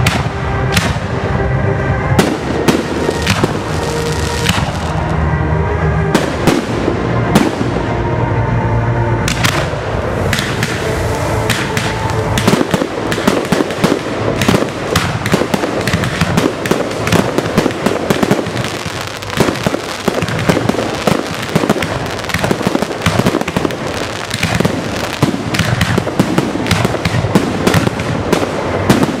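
Fireworks display: aerial shells bursting in a steady run of bangs, with music playing under them for roughly the first twelve seconds. After that the bangs come thick and fast, one on top of another.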